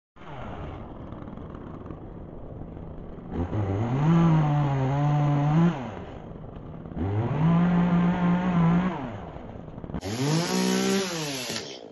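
A gas chainsaw idles, then is revved to full speed three times. Each time the engine pitch rises sharply, holds for about two seconds, and drops back to idle.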